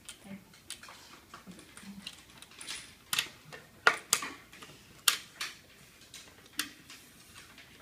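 Plastic clicks and clacks of a VersaTiles self-checking case being closed, flipped over and opened again to check the answers, with small plastic tiles knocking on the desk. A run of sharp clicks, the loudest a few seconds in.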